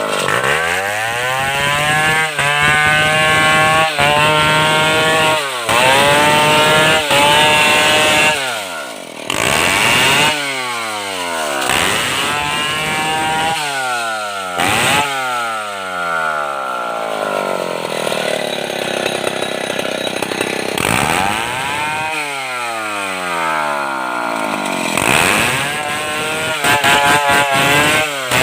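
Stihl 070 two-stroke chainsaw cutting wood. The engine pitch climbs and drops again and again as the throttle is opened and released.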